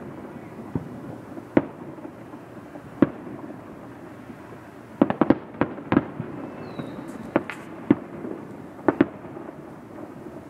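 Distant fireworks going off: sharp bangs at irregular intervals, with several in quick succession about five seconds in.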